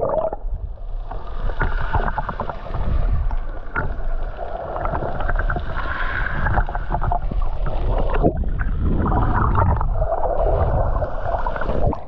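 Underwater sound from an action camera held below the sea surface: muffled rushing and gurgling of moving water, with many small clicks and knocks.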